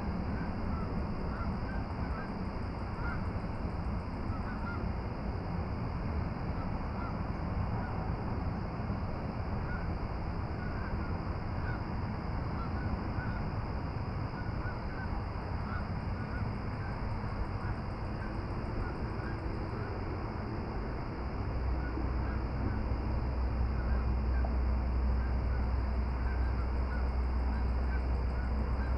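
Outdoor dusk ambience of many short bird calls over a steady hiss, with a low rumble coming in about two-thirds of the way through.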